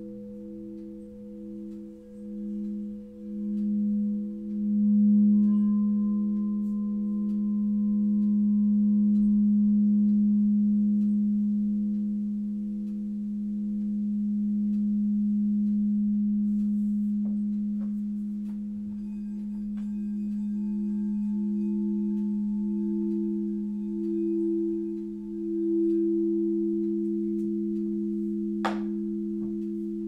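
Crystal singing bowls sustaining a chord of G#, E and B, the tones swelling and pulsing in loudness as a mallet works the rims. A single sharp clink near the end.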